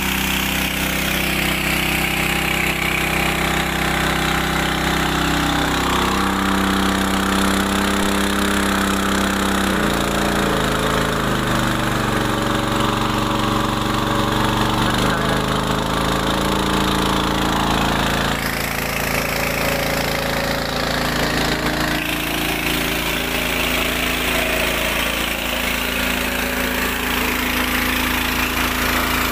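Small 6.5 hp petrol engine driving a portable water pump with a home-modified impeller, running steadily while the pump discharges a heavy gushing jet of water. The engine speed shifts down and back up a few times in the first half, then holds steady.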